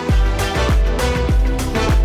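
Background music with a steady beat: a deep kick drum about every 0.6 seconds under held notes.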